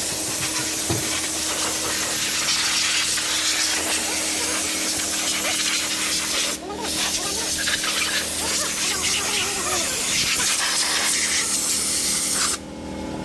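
Compressed-air suction-feed spray gun hissing steadily as it sprays onto an engine and chassis, with a short break about halfway and stopping just before the end.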